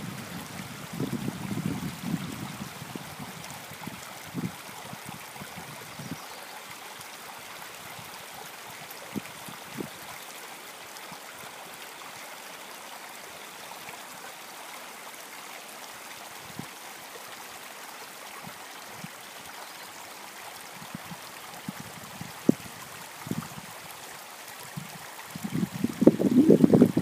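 Creek water running steadily, with gusts of wind rumbling on the microphone near the start and again near the end.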